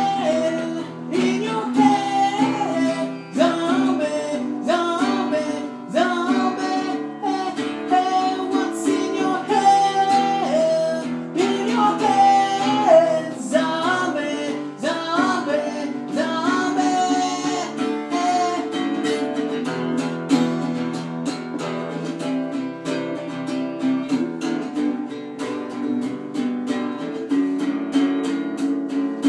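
Acoustic guitar strummed in a steady rhythm, with a wordless sung melody over it for about the first half before the guitar carries on alone.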